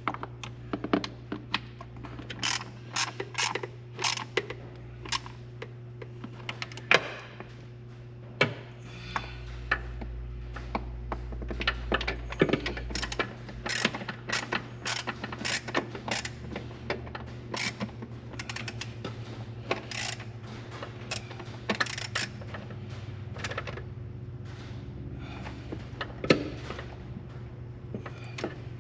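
Short ratchet clicking in quick runs, one bolt after another, as intake manifold bolts are snugged down in a light first torque pass. A steady low hum runs underneath.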